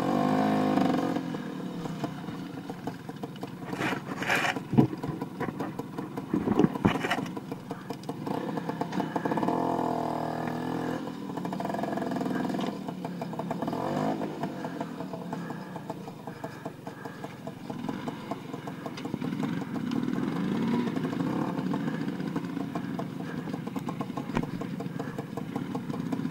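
Motor scooter engine running and revving up and down while riding a rough dirt trail, with a few sharp knocks and rattles from bumps a few seconds in.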